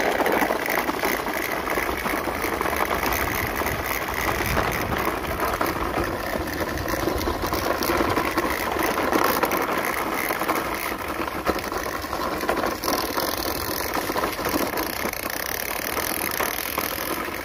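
Toy RC car running, its electric motor and gears driving it along with a steady mechanical rattle.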